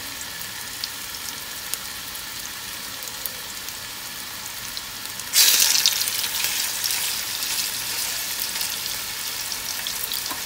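Seasoned chicken tenders sizzling in hot oil in a nonstick pot. About five seconds in the sizzle suddenly gets louder and brighter as another raw tender is laid into the oil, and stays louder.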